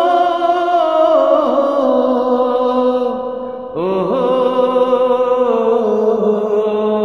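A man singing the drawn-out opening of a Bengali folk song in two long held phrases, the pitch wavering and sliding between notes. The second phrase begins about four seconds in with an upward slide.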